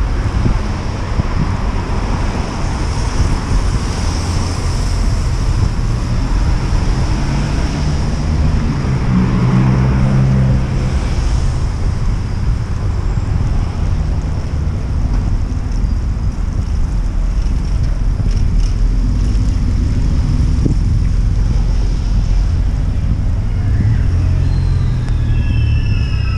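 Wind rumbling on the microphone of a camera riding on a moving bicycle, over street traffic noise. An engine passes about ten seconds in, and near the end a high squeal glides downward.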